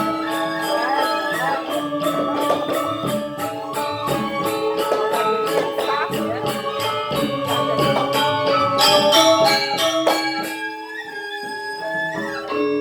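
Balinese gamelan gong kebyar playing: many bronze metallophone and gong tones with fast, even strokes of small cymbals. About ten seconds in it drops to a quieter, thinner passage, and the full ensemble comes back near the end.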